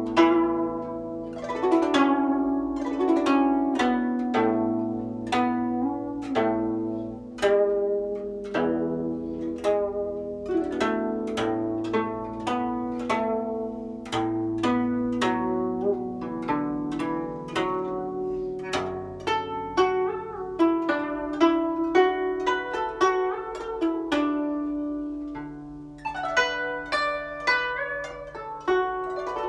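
Guzheng played solo: a melodic passage of plucked notes that ring on, over lower notes held beneath, with a few notes bent in pitch by pressing the string.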